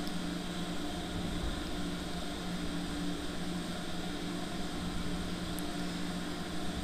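Steady low hum over an even hiss, unchanging throughout.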